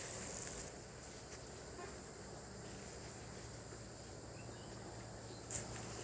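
Insects chirring in a steady high-pitched drone, faint, with one short click near the end.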